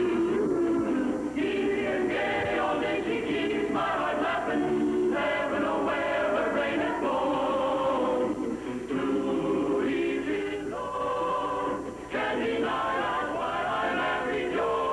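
A chorus singing a sitcom's opening theme song, a lively tune with several voices together.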